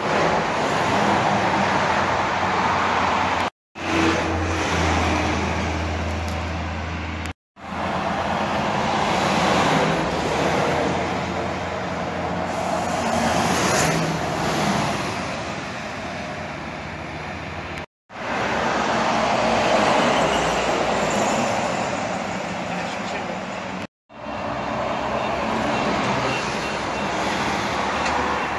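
Road traffic passing on a multi-lane highway: tyre and engine noise of vehicles swelling and fading as they go by, with a deep steady engine hum in one stretch. The sound breaks off briefly four times where short clips are joined.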